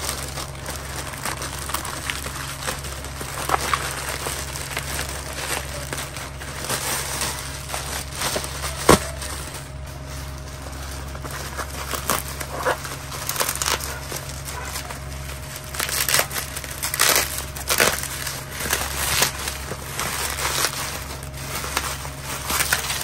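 Plastic mailer bag and bubble wrap crinkling and crackling as hands handle and unwrap them, in irregular bursts of rustle, with one sharp snap about nine seconds in.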